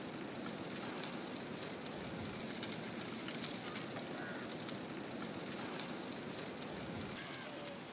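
Charcoal fire crackling and sizzling under a whole fish wrapped in foil on a wire grill, a steady hiss.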